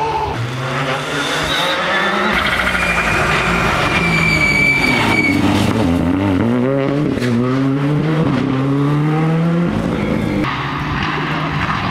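Rally car engines at high revs passing at speed. One engine's pitch climbs steadily as it accelerates, then swings up and down in quick waves. The sound changes abruptly about half a second in and again about ten seconds in, as it moves from one car to another.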